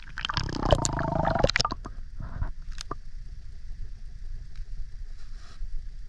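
Water splashing and gurgling around the camera's microphone as it is dipped into a shallow stream pool, loudest in the first couple of seconds. It then settles to a muffled low rumble with faint ticks once the camera is under water.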